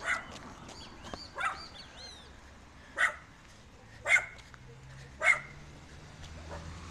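A dog barking, five short barks spaced about a second apart.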